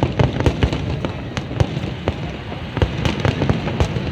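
Aerial fireworks display: a rapid, irregular run of sharp bangs, several a second, over a steady background rumble.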